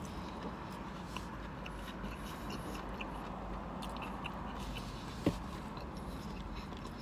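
Close-up chewing of a mouthful of vegetable spring roll, with small wet mouth clicks every so often over a steady low background hum. A single sharp knock sounds about five seconds in.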